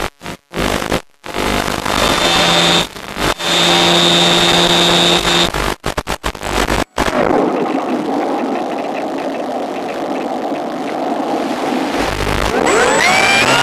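Electric motor and propeller of a Cularis motor glider, heard through the onboard FPV link. The first second breaks up into crackling signal dropouts. The motor then runs at a steady whine, winds down with a falling pitch about seven seconds in to leave a rush of airflow, and spools back up with a rising whine near the end.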